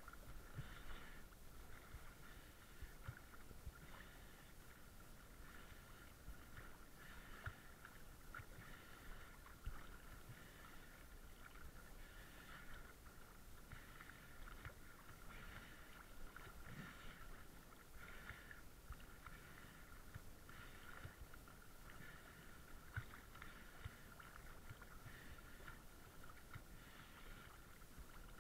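Faint boat engine running steadily: a constant high hum with a regular pulse over a low rumble.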